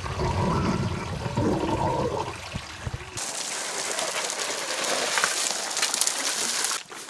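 Muffled underwater rumble and gurgle of a shallow stream. About three seconds in it cuts abruptly to the bright, even hiss of the stream running over stones.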